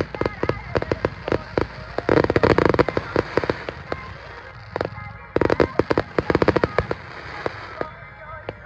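Fireworks going off in rapid volleys of crackling bangs, densest in two clusters, about two seconds and about five and a half seconds in.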